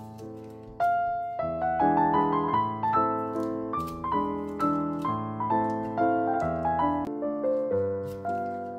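Background piano music: a gentle melody of struck notes over chords, each note fading after it is played.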